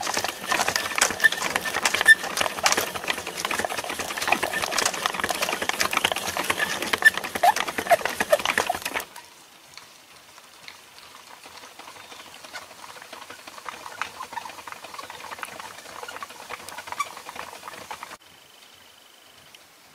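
Wood fire crackling close-up, a dense run of sharp crackles and pops. About nine seconds in it drops suddenly to much quieter, sparser crackling ticks.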